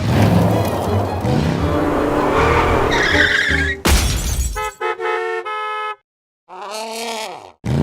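Music with cartoon car sound effects: a squealing skid about three seconds in, then a sharp crash. After that comes a string of car-horn toots, a short pause, and a falling tone near the end.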